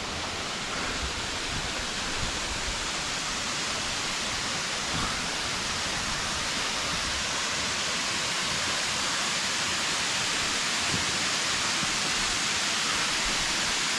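Steady rushing of a waterfall, an even hiss of falling water that grows slightly louder across the stretch.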